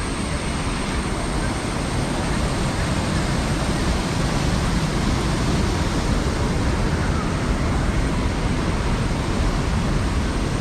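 Thirparappu waterfall on the Kodayar River: falling water making a loud, steady, even rush.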